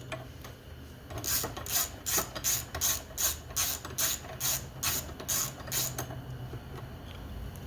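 Hand ratchet wrench clicking in quick back-and-forth strokes, about two to three a second, loosening a 10 mm bolt; the strokes stop about six seconds in.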